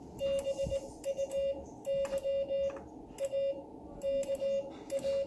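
Morse code sent on a ham radio key: a steady mid-pitched beep keyed on and off in short and long elements (dots and dashes), grouped into letters with pauses between them, with a faint click at many of the key strokes.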